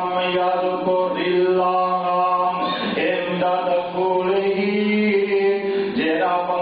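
A man's voice chanting a melodic religious recitation in long, held notes, phrase after phrase, the cantillated style of a qari reciting in the middle of a sermon.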